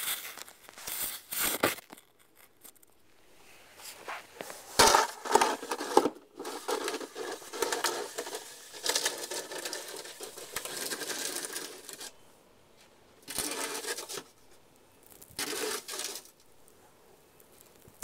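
Snow shovel scraping and scooping snow, mixed with boots crunching in snow: several separate scrapes of a second or so, and one longer spell of scraping lasting about four seconds around the middle.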